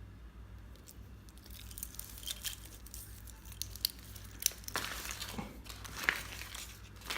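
Crinkling and rustling of packaging being handled, a run of irregular crackles and small clicks that grows busier after the first second or so.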